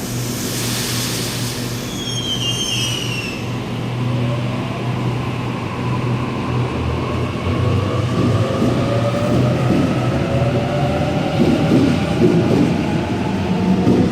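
Electric train pulling away, its traction motors whining in a slowly rising pitch as it picks up speed over a steady low hum. A burst of air hiss and a brief falling squeal come near the start.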